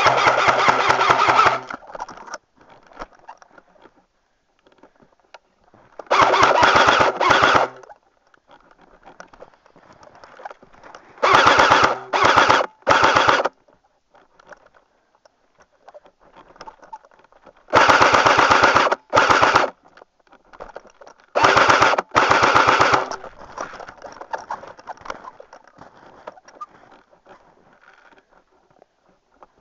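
Airsoft rifle firing full-auto in short bursts of rapid clicks, with a steady whir underneath. The bursts come in five groups about a second or two long, some broken into two or three quick bursts, separated by pauses of several seconds.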